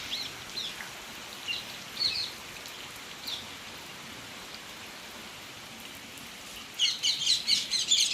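Steady hiss of rain, with birds chirping over it: a few scattered chirps at first, then a fast, dense run of chirps from about seven seconds in.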